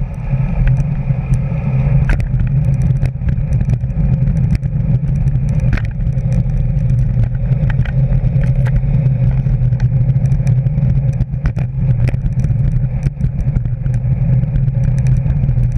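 Steady low rumble of wind and road noise from a bicycle ridden at about 20–25 mph, with frequent small clicks and rattles as the bike and its camera mount jolt over the path surface.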